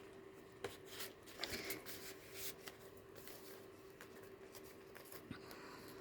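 Faint rustling and soft taps of paper pages and inserts being handled, mostly in the first half, then quieter.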